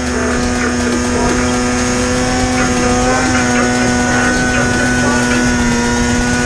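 Two-stroke mountain snowmobile engine running at steady high revs under load, its pitch holding almost constant as the sled pushes through deep powder.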